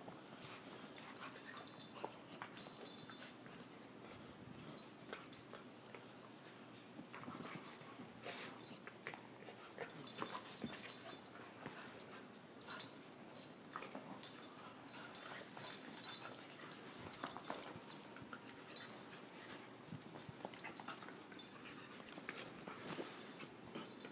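Two puppies play-fighting: short, irregular dog noises and scuffling that come in clusters, busiest in the middle and later part.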